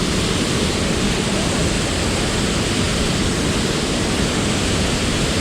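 Steady rush of a waterfall and fast-running river water.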